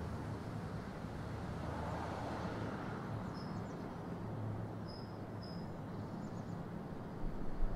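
Distant ocean surf on a rocky coast, a steady rush that swells about two seconds in. From about three seconds on a small bird gives a few short high chirps. A brief low bump comes near the end.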